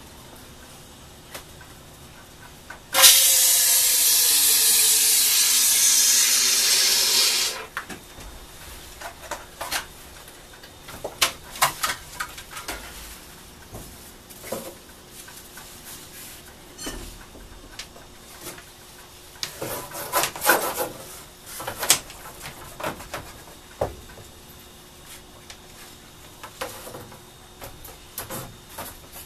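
Aerosol can of expanding flotation foam spraying into a float tube: a loud hiss lasting about four and a half seconds, starting about three seconds in, with a falling tone beneath it. After it, scattered knocks and rubbing.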